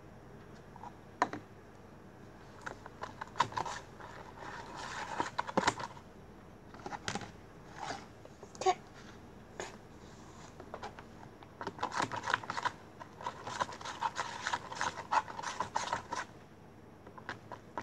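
Plastic spoon stirring glue slime as it forms in a plastic tub: rapid clicking and scraping against the tub, in two spells a few seconds apart with a few single clicks between.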